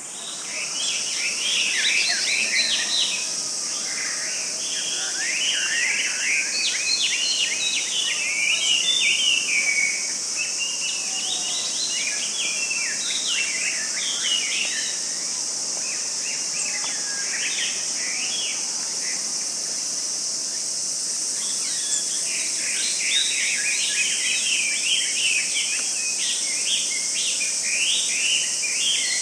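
Forest ambience: birds calling in quick bursts of short chirps over a steady, high-pitched insect drone. The calls thin out in the middle and pick up again later.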